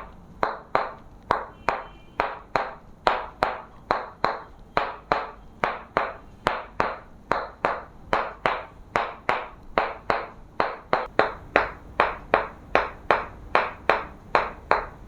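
Sharp clicks repeating at an even pace, nearly three a second, each with a short ring.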